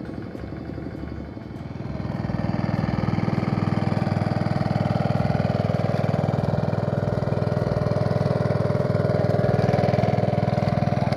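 Small petrol engine of a portable water pump running steadily, growing louder about two seconds in.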